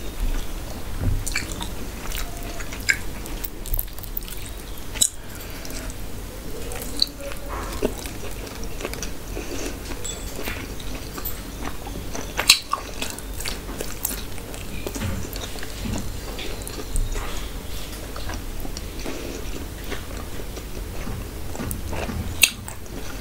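Close-miked chewing and biting of a meal of mughlai paratha, rice and mutton curry eaten by hand, with wet mouth clicks scattered throughout and a sharper bite about twelve seconds in.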